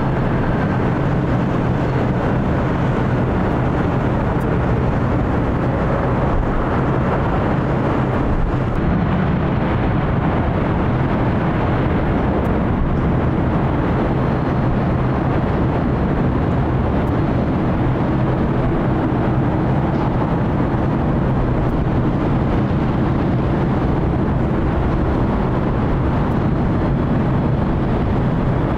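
Jet airliner engines running: a loud, steady noise with a low hum underneath that holds level throughout.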